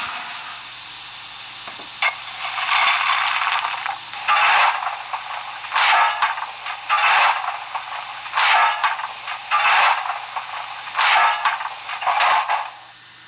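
ESU LokSound V4.0 sound decoder in a Märklin BR 39 model steam locomotive, playing steam hissing through its small speaker: a steady hiss, then repeated bursts of hiss about every second to second and a half, over a faint low hum, while the model stands still. The hissing cuts off sharply near the end.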